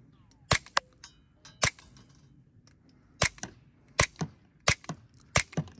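Suppressed .22 LR pistol firing subsonic CCI Quiet rounds through a Nelson Precision Little Spoon silencer: about six sharp, light cracks at an unhurried, uneven pace, each followed by a fainter tick.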